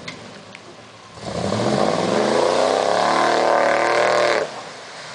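Pickup truck engine revving hard while its tyres spin and sling mud. About a second in the revs climb steeply, hold high for a few seconds, then drop off suddenly near the end.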